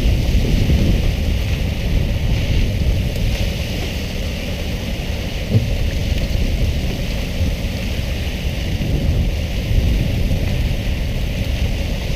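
Water sprayers of a pole-and-line tuna boat hissing steadily onto the sea, over a low rumble from the boat and wind on the microphone. A single knock comes about five and a half seconds in.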